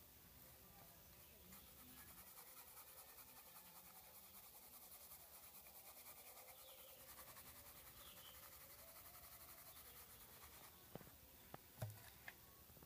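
Faint brushing: a bristle paintbrush scrubbing gasoline over a copper circuit board to dissolve the toner ink, in quick, regular strokes. A few light knocks near the end.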